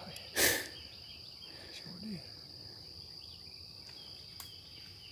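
Steady high-pitched insect buzz over quiet outdoor background, with one short, sharp breathy burst about half a second in.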